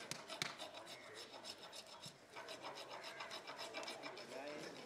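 Hand tool rasping against an elephant's ivory tusk as the overgrown tusk is trimmed and shaped, in quick, evenly repeated strokes.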